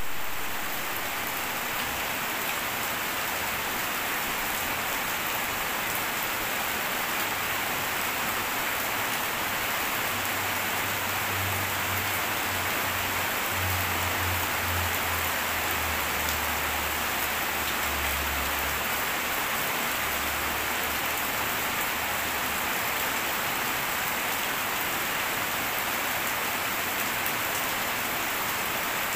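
Steady, heavy rainfall pattering on surfaces, a dense even hiss that holds at one level throughout. A low rumble comes and goes in the middle stretch.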